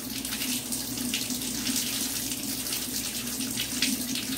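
Kitchen cold-water tap running steadily into a sink, with the water splashing unevenly, over a steady low hum.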